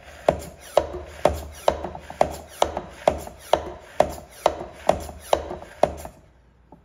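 Hand-pumped vacuum oil extractor being stroked to build vacuum and draw engine oil up through the dipstick tube. It gives a sharp click on each stroke, about two a second, twelve strokes in all, and stops about six seconds in.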